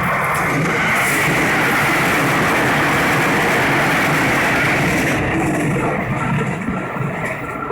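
A JR Central electric commuter train passing close by at speed over a level crossing, a loud steady rumble of wheels on rail that eases a little after about five seconds.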